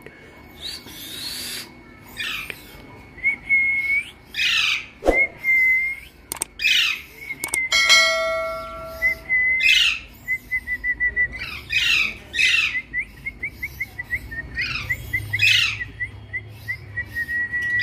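Alexandrine parakeets calling: many short, sharp calls, each sliding downward in pitch, repeated every second or so. A thin steady whistling tone runs behind them and breaks into rapid pulses in the second half, and a short electronic chime sounds about eight seconds in.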